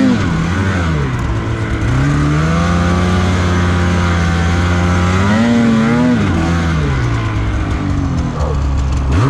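Snowmobile engine running hard under throttle, its revs dropping early on, then climbing and holding steady, surging again about halfway through, and falling off near the end.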